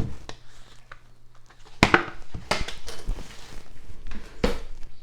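A covered Rock Crock baking pan and kitchenware being handled and set down on a counter: a sharp knock about two seconds in, then a lighter knock and another near the end, with small clicks between.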